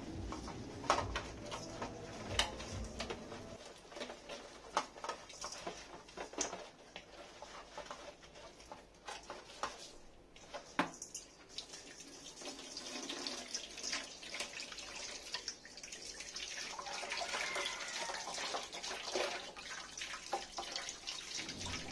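Hands rubbing a whole red tilapia with lime halves in a stainless-steel bowl: wet squelches, small splashes and knocks against the bowl. In the last few seconds tap water runs into the bowl as the fish is rinsed.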